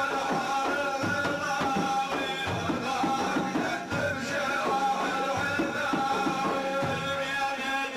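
Sufi religious praise song (madih): a singer's long held notes over a steady beat of hand drums.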